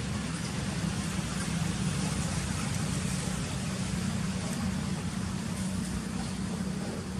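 Steady low rumble with an even hiss, unchanging throughout, like distant road traffic.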